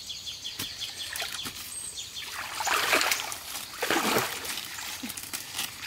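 Water splashing and sloshing as a person wades through knee-deep river water, louder in two surges about halfway through.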